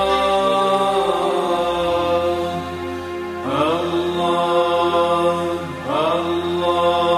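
Male voice singing an ilahija, a Bosnian Islamic devotional hymn, in long held notes. The voice slides up into a new note about halfway through and again near the end, over a steady low drone.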